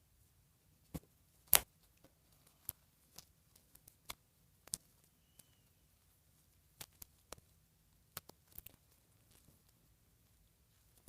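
Scattered light clicks, taps and rustles from a doll and its dress being handled while the dress is worked on, with one sharper click about one and a half seconds in.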